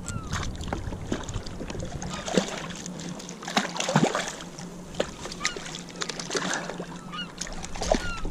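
Water splashing as a hooked sea bass thrashes at the surface beside a kayak and a hand reaches into the water for it; irregular splashes and knocks, the biggest about four seconds in.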